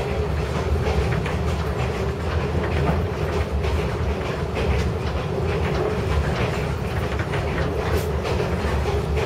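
A train running on the rails, heard from inside a sleeper compartment: a steady low rumble with the rattle and clatter of the wheels and carriage.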